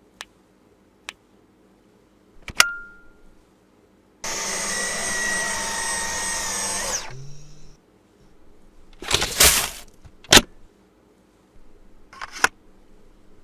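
Cordless stick vacuum switched on and running for about three seconds, a steady high whine over the rush of air, then spinning down when switched off. It is preceded and followed by sharp clicks and short clattering knocks.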